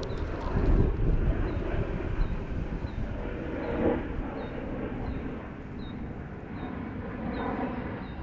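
Steady low outdoor rumble, like wind or distant motor noise, with a faint short high chirp repeating about every 0.6 seconds.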